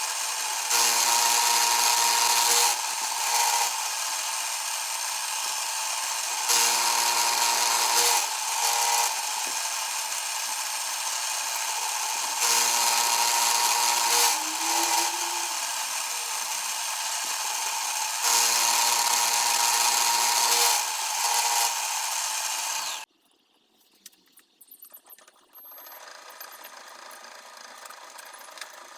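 Small machine tool motor running steadily, getting louder for about two seconds four times at even intervals of roughly six seconds, then stopping abruptly near the end.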